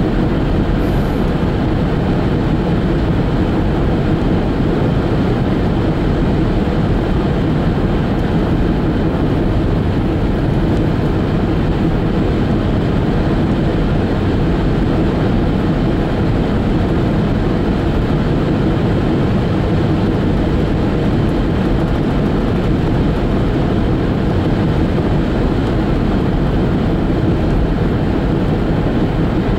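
Steady road noise inside a car driving at highway speed: tyres on the pavement and the running engine make an even, low-pitched drone that doesn't change.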